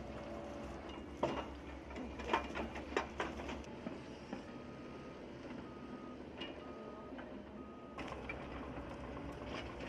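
Bulldozer at work: a low engine rumble with several sharp metal clanks in the first few seconds, then four evenly spaced beeps of a reversing alarm, a little over a second apart.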